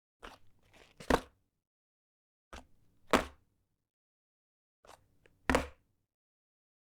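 A cigarette pack set down on a wooden table three times. Each time a light first touch is followed about half a second later by a louder tap.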